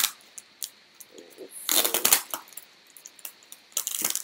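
A bunch of keys clinking and scraping as they are used to saw at thickly taped plastic packaging, with crackling wrap. Short bursts, loudest about two seconds in and again near the end.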